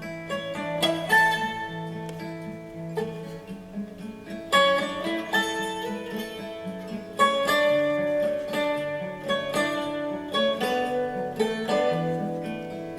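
Acoustic guitar music: a run of plucked notes over a repeating low bass line.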